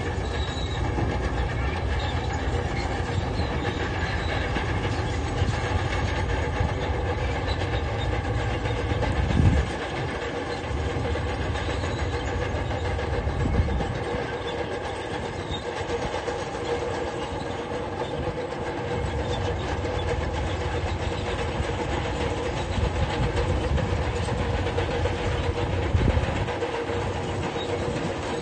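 A crawler construction machine's diesel engine runs steadily, with a steady whine and the clatter of steel tracks. There are a few louder knocks, about a third of the way in, about halfway, and near the end.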